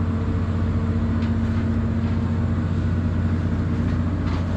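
Fishing boat's engine running steadily, a low even drone with a steady hum, with a couple of faint knocks from work on deck.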